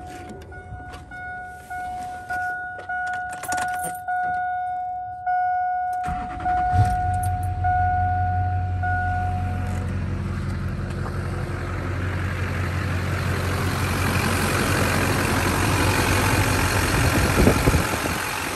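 A truck door unlatching and a repeating chime pinging, then the 2002 Silverado's LB7 Duramax 6.6-litre V8 turbo-diesel cranks and starts about seven seconds in and settles into a steady idle.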